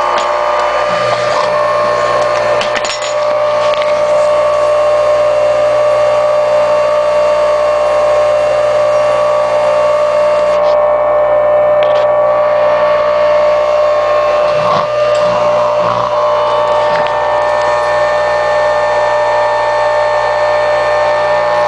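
Craftsman flex drive table saw motor, a 1-1/16 HP capacitor-start electric motor, running steadily at full speed on its own with a steady whine and hum. It runs smoothly, in the owner's words "how nice it runs."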